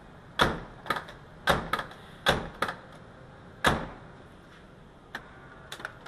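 VW T3 Vanagon door latch and lock mechanism clacking as it is worked by hand, about seven sharp clacks in the first four seconds and a few lighter clicks near the end. The latch is being tested after its broken over-center spring was dealt with, and now holds with good resistance instead of dropping to lock.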